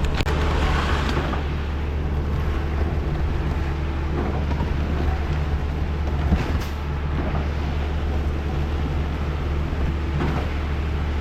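Concrete truck's diesel engine running steadily with a deep, even hum, and a couple of brief knocks over it.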